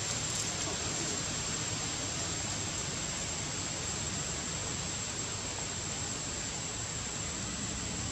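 Steady background hiss with a constant thin, high-pitched whine over it, unchanging throughout.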